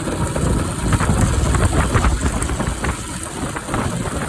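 Bajaj Pulsar 200 motorcycle engine running, with a low, uneven rumble and scattered short clicks.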